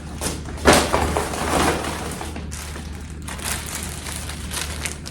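Rustling and crinkling of parcel packaging being handled and opened, in irregular bursts, with one sharp knock about two-thirds of a second in.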